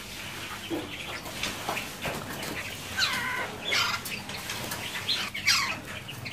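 Caged Sunda laughingthrushes (poksai mantel) calling, a run of calls that each sweep down in pitch, the loudest about three seconds in and again around four and five and a half seconds.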